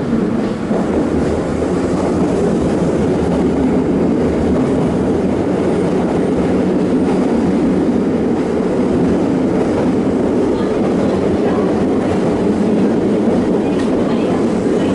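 Kita-Osaka Kyuko subway train running through a tunnel: a steady noise of wheels on rail.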